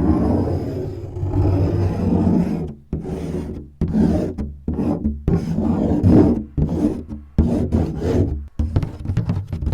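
Fingers scratching and rubbing a surface: a continuous rasping rub for about three seconds, then a run of separate scratch strokes, a little more than one a second.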